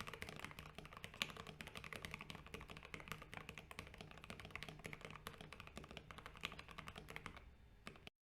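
Fast, continuous typing on a custom mechanical keyboard with Gateron Ink Black V2 linear switches, a dense run of key clacks that cuts off suddenly near the end.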